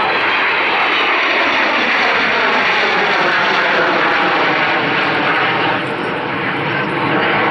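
Avro Vulcan XH558's four Rolls-Royce Olympus turbojets roaring loudly as the bomber passes, the sound sliding down in pitch as it goes by. The noise dips briefly about six seconds in and then swells again.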